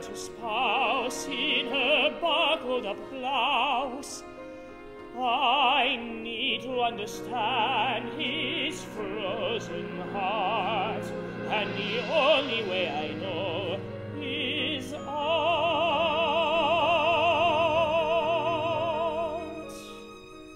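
An operatic voice singing with wide vibrato over a small orchestral accompaniment, in short phrases with brief gaps. It ends on one long held note that fades out near the end.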